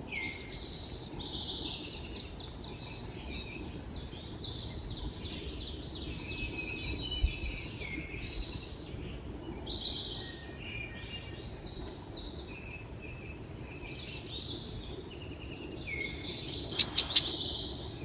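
Several wild birds singing in short, overlapping phrases, one after another, over a faint background hiss. Near the end three sharp, louder notes ring out in quick succession.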